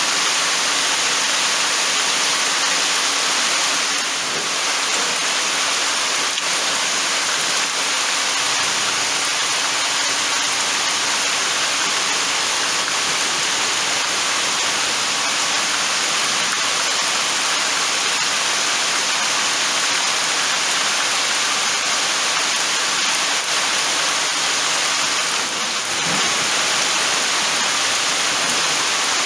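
Steady downpour of rain, an even rushing hiss that holds at the same loudness throughout.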